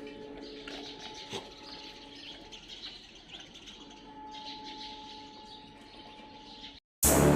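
Birds chirping faintly over a low steady hum. Near the end the sound cuts out and loud electronic music with a heavy beat starts abruptly.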